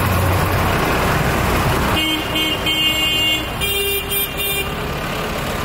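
Tractor diesel engines running as they drive past, then a horn toots three times about two seconds in, followed by a higher-pitched horn sounding in two short blasts.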